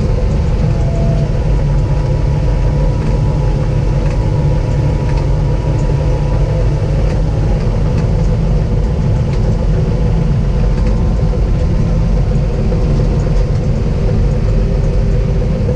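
Crawler dozer's diesel engine running steadily under load as the blade pushes dirt, heard from inside the cab.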